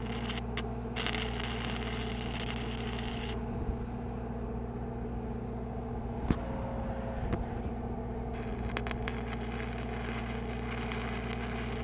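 Two stick-welding tacks with a 1/8-inch 6010 rod, the arc crackling and hissing for about two seconds near the start and for about three seconds near the end. Under both runs the steady hum of a Lincoln SAE-300 engine-driven welder.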